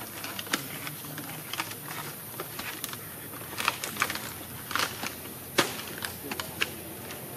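Irregular light clicks and taps at an uneven pace, with a few sharper ones in the second half.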